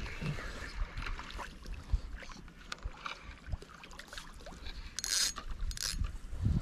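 Small fixed-spool spinning reel being wound in, with small clicks, over water lapping against a rocky lake shore. About five and six seconds in come two short splashes as a hooked small brown trout is drawn to the surface.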